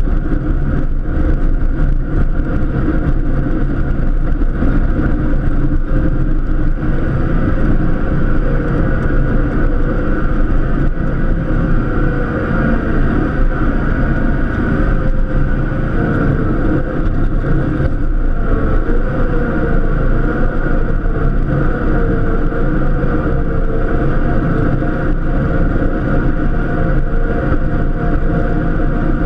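Cub Cadet LTX1050 KW lawn tractor's engine running steadily at working speed under the load of plowing snow, its note wavering slightly now and then.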